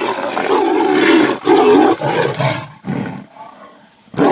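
Tigers fighting, roaring and growling at each other loudly; the roaring breaks off about two and a half seconds in, followed by one short call and quieter sounds.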